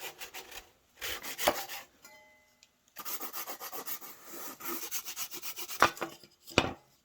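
A hand tool scraping a wooden post in quick back-and-forth strokes. The strokes come in runs with a short pause partway through, and two sharper knocks come near the end.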